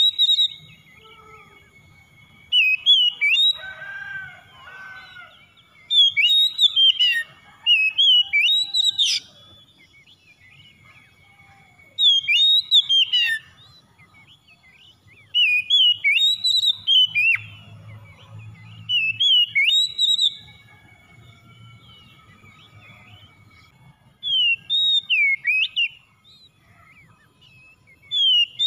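Oriental magpie-robin singing: loud bursts of rapid, varied whistled notes, about eight phrases of one to two seconds each, with pauses of a few seconds between them.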